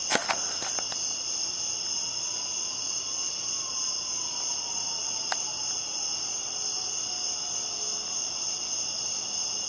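Crickets chirping in a steady, high-pitched night chorus, with a few sharp clicks about a second in and one more near the middle.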